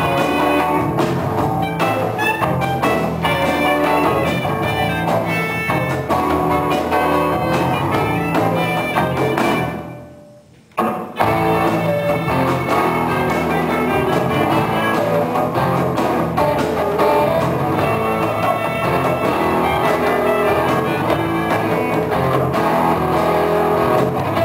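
Live band playing an instrumental break between sung verses: electric guitar over bass, drum kit and violin. About ten seconds in the music fades away for a moment and then cuts back in abruptly.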